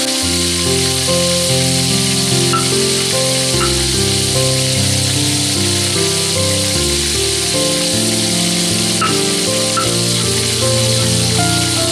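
Oil sizzling steadily as pieces of mackerel tuna fry in a wok, with melodic background music playing over it.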